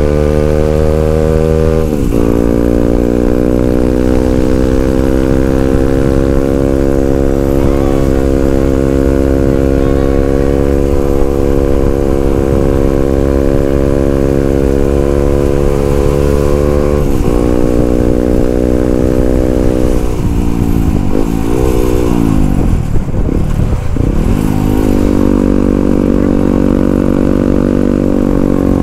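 Yamaha WR155R's 155 cc single-cylinder four-stroke engine running under way. The note climbs and then drops suddenly at a gear change about two seconds in, and shifts again near seventeen seconds. Around twenty seconds in the revs dip and rise several times, then settle into a steady, higher note.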